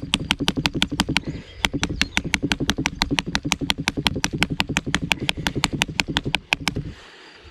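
Rapid, even stabbing strikes of a Mora Companion HD's stainless steel (Sandvik 12C27) knife tip into a brick, about six sharp clicks a second. There is a brief pause a little over a second in, and the strikes stop shortly before the end. The strikes are a torture test of the blade's tip.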